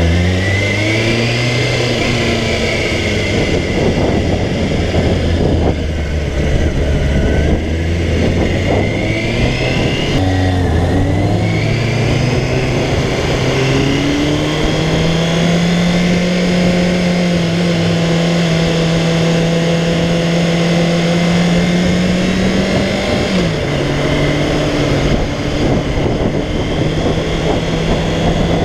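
Kawasaki ZXR400's inline-four engine heard from on the bike, pulling away and rising in pitch through the gears, then holding a steady higher note at cruising speed, with a brief dip in pitch near the three-quarter mark as a gear is changed. Wind rush runs under it.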